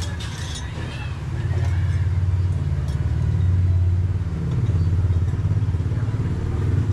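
Honda XR200's single-cylinder four-stroke engine running steadily, getting louder about a second and a half in and dipping briefly midway.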